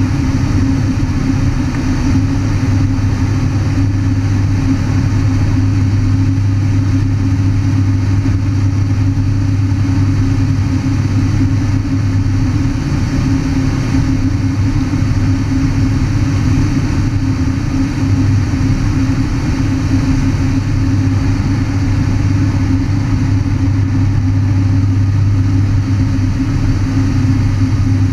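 The Pratt & Whitney turboprop engine and propeller of a 750 hp Thrush crop duster running steadily in flight, heard from inside the cockpit as a loud, unbroken drone with a deep hum.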